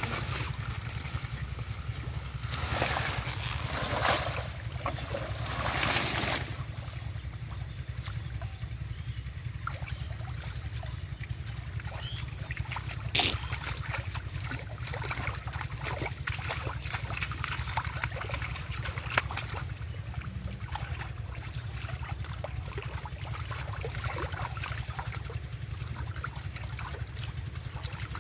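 Splashing and sloshing of shallow muddy water as hands grope in the mud and lift out a catfish. The loudest splashes come in the first several seconds, with one sharp splat near the middle and scattered drips and small splats after, over a steady low rumble.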